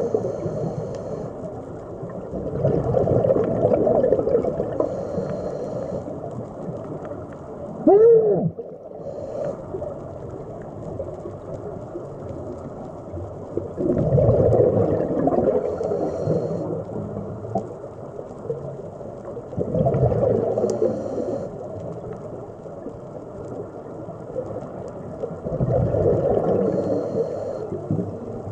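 Scuba diver breathing through a regulator underwater: bubbling exhalations swell up every five to six seconds, with a fainter hiss between breaths. About eight seconds in there is a brief squeak that rises and falls in pitch.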